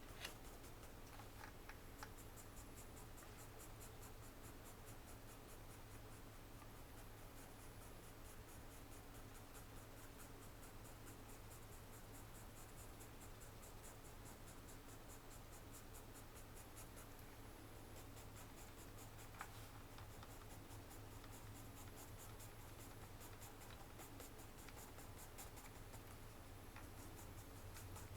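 Faint graphite pencil strokes scratching on paper in a long run of short, quick strokes.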